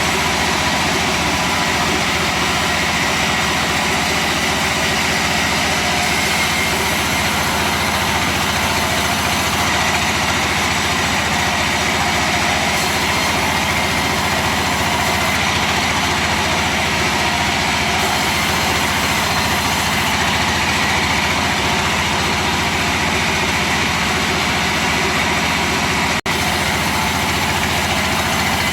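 Engine of a wood-cutting machine running steadily, with a momentary break near the end.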